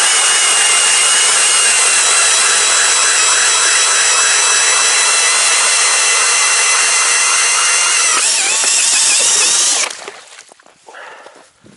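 Heimerdinger cordless drill turning an Iceberg 130 mm ice auger as it bores a fishing hole in the ice: a steady motor and gear whine over the scraping of the auger cutting ice. The pitch wavers about eight seconds in, and the drill stops just before ten seconds.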